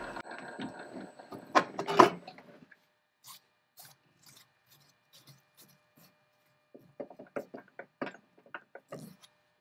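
A metal lathe spindle running down to a stop, with two sharp metallic knocks about two seconds in. Later comes a run of light irregular clicks and rubs as a hand handles the freshly knurled steel workpiece in the chuck.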